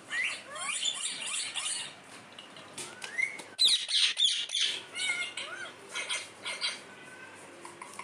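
Rose-ringed parakeets chirping and squawking in a string of short calls that slide up and down in pitch, with a louder run of harsh screeches about halfway through.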